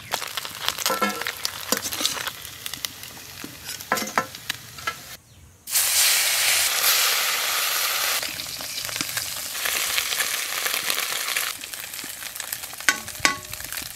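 Small fish frying in hot mustard oil in an iron kadai, sizzling steadily, with a few sharp scrapes and clicks of a metal spatula against the pan. About six seconds in the sizzling turns much louder for a couple of seconds, then settles back.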